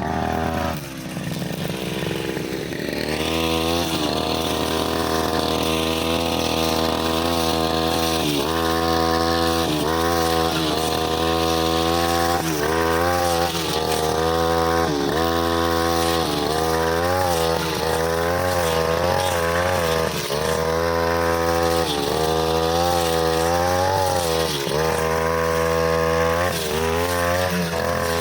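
Brushcutter engine revving up, then running at full throttle with its blade cutting overgrown grass. The pitch dips briefly every second or two as the blade takes load.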